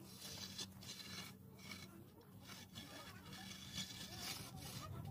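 Long straight-edge scraped back and forth across fresh cement-and-sand plaster on a brick wall, a rasping stroke repeating about once or twice a second, over a low steady hum.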